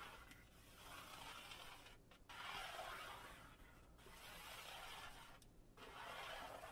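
Near silence, with four faint soft swishes about a second and a half apart.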